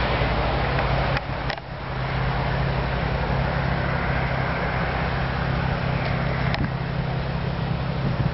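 Steady machine drone with a low hum and a rushing hiss, broken by two sharp clicks and a brief dip about a second and a half in, then running on.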